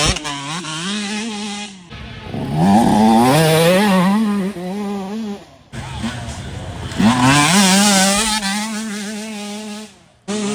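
Dirt bike engines racing past, revving up and down through the gears. The sound breaks off abruptly and restarts a few times.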